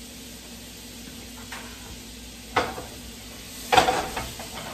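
Butter melting and sizzling softly in a skillet. A sharp knock of kitchenware comes about two and a half seconds in, then a louder clatter near the end.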